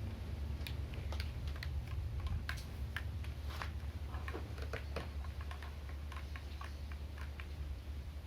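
Irregular light clicks and taps, a few each second, over a steady low rumble.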